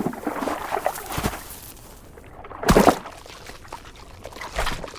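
Watery swishes and scuffles from an octopus seizing a crab underwater, with one loud rush of water a little under three seconds in and a smaller one near the end.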